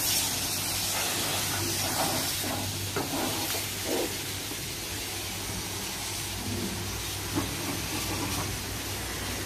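High-pressure wand of a self-service car wash spraying soapy water onto a van: a steady hiss of spray with a steady low hum underneath.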